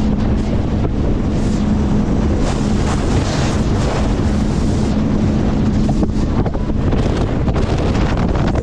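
Wind buffeting the microphone on an open powerboat running fast over choppy water, with the rush of water along the hull. Under it a steady engine drone that drops away about seven seconds in.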